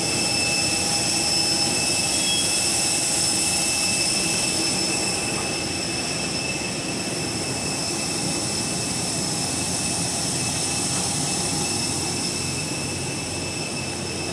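Parked jet airliner running on the apron: a steady rush of noise with several high, even whining tones, easing slowly in the second half.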